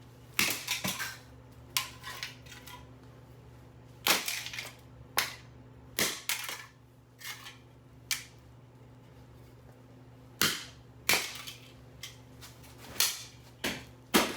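A Legrand Pass & Seymour light switch being struck over and over: more than a dozen sharp, cracking hits at irregular intervals, some close together in pairs.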